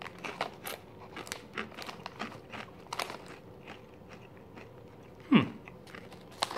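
Crunching and chewing a mouthful of Tayto smoky bacon potato crisps: irregular short crisp cracks, several a second. About five seconds in comes a short voiced hum that falls in pitch.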